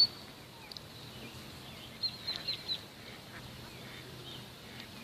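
Small birds chirping: a quick run of short, high chirps about two seconds in, with a few fainter chirps later, over faint outdoor background noise.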